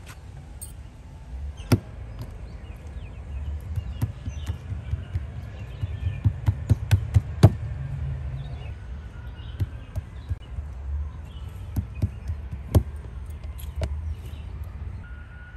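Hands patting and pressing a ball of soft dough flat on a table top: scattered taps and slaps, with a quick run of them about six to seven seconds in.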